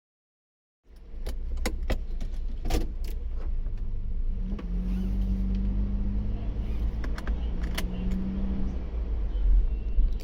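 Low, steady vehicle rumble starting about a second in, with scattered clicks and rattles and a steady hum from about four and a half to nearly nine seconds in.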